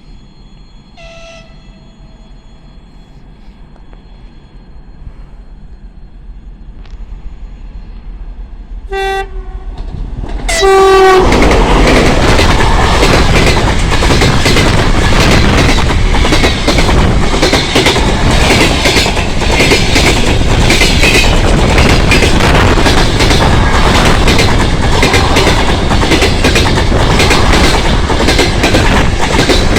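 A TEP70 diesel locomotive hauling a passenger train approaches with a growing rumble, sounds its horn in two short blasts, then the train rushes past loudly about eleven seconds in, its wheels clattering over the rail joints.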